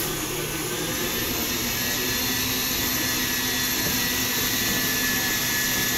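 Electric stand mixer running at high speed, a steady motor whine and hum with no change in pitch or level.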